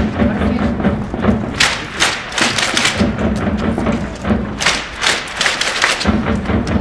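Football supporters' drums beating a cheer rhythm, with the crowd clapping along.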